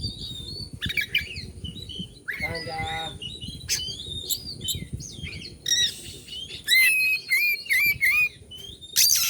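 Oriental magpie-robin (kacer) singing a varied song of clear whistles, quick chirps and slurred up-and-down notes. A harsh buzzy note comes about two and a half seconds in, and louder rasping chatter comes near the end.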